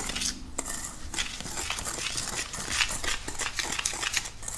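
Wire whisk stirring dry powder in a stainless steel mixing bowl, scraping and clinking against the metal in repeated strokes about two a second.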